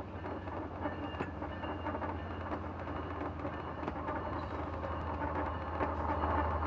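Approaching train heard from between the rails: a low steady rumble with faint ticks, slowly growing louder as the locomotive draws nearer.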